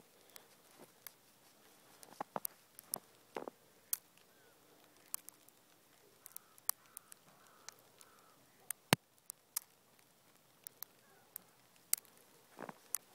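Sparse, faint crunches and clicks of footsteps on a thin layer of fresh snow, with one sharper click about nine seconds in.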